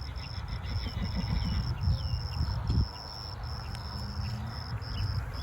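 Wind rumbling on the microphone, with an insect chirping in an even pulse about twice a second and a few short bird chirps above it.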